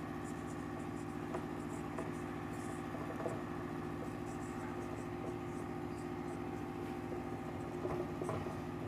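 Marker pen writing on a whiteboard: faint, short scratchy squeaks of the felt tip on the board, with a few light taps, over a steady low hum.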